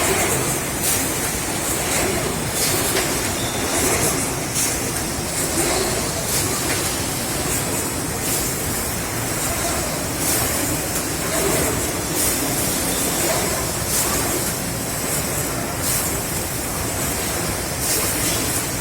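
Production-line machinery running on a factory floor: a steady mechanical din, with short, sharp high hisses every second or two.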